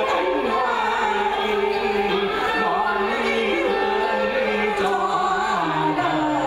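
A man and a woman singing a Vietnamese chèo duet into microphones with music, in sustained, wavering melodic lines.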